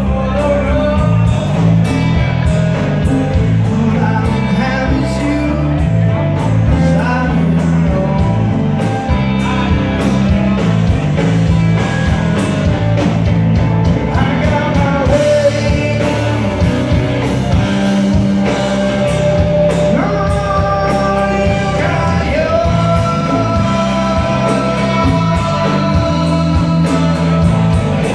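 Live rock band playing at full volume: electric guitars, bass guitar, drum kit and congas, with a voice singing over them.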